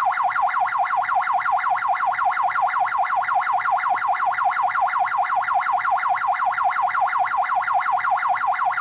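Ambulance siren in a fast yelp, sweeping rapidly up and down in pitch several times a second without a break.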